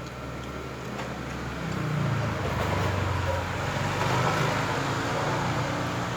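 A motor vehicle passing by: an engine rumble and road noise that swell about two seconds in and ease off toward the end.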